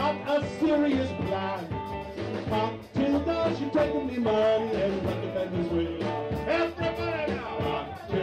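A live calypso band playing an upbeat song, with electric guitar, bass and a gliding lead melody line over it.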